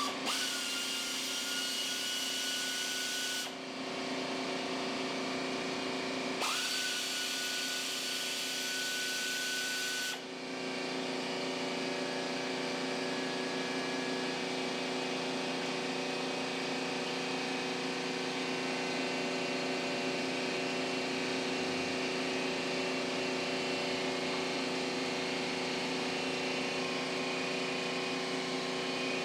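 Small engine running steadily, likely the Cub Cadet's 19 hp Kohler, with two bursts of a power tool's whine, each three to four seconds long, in the first ten seconds.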